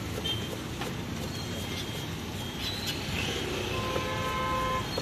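Steady low rumble of street traffic, with a few light knocks of a knife on a wooden chopping board. A faint held tone sounds near the end.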